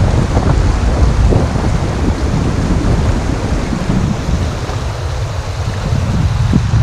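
Wind buffeting the microphone with a gusty rumble, over the steady rush of shallow river water running fast over stones in a low-water rapid.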